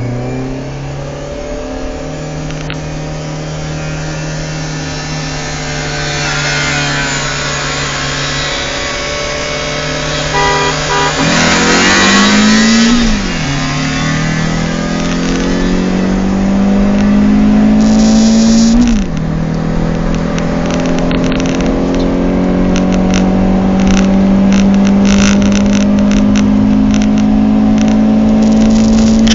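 Rover 45's 1.6 K-series four-cylinder engine heard from inside the car, accelerating hard through the gears. Its pitch climbs and drops back at two upshifts, about halfway and two thirds of the way through, with wind and road noise growing as the car gains speed.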